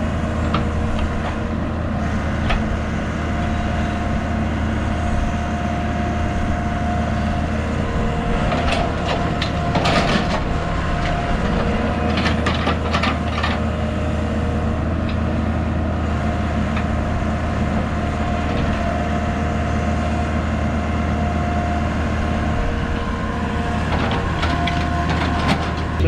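Excavator engine running steadily under load while the bucket digs out a trench side bank. There are bursts of clattering and scraping about a third and halfway through.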